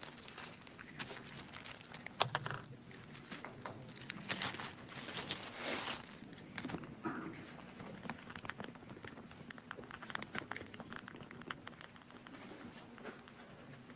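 Plastic bag and paper slips crinkling and rustling as they are handled near a microphone, in scattered crackles and clicks, with one sharp click about two seconds in.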